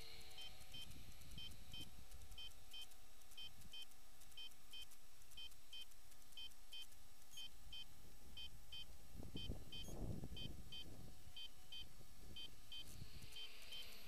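Short, high electronic beeps repeating about twice a second, some in pairs, over wind rumbling on the microphone, with a stronger gust about nine to ten seconds in.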